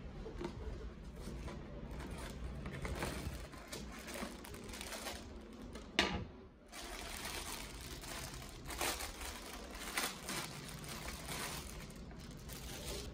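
Packaging being handled and unwrapped: cardboard and packing tape rustling as a parcel is cut open, then a clear plastic bag crinkling and crackling as it is pulled off a cap. A sharp click about six seconds in is the loudest sound.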